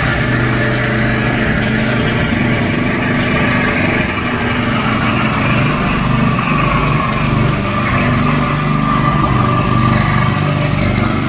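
Gasoline-engine concrete power trowels running steadily at full throttle while finishing a freshly poured floor: a loud, continuous engine drone with a faint higher whine.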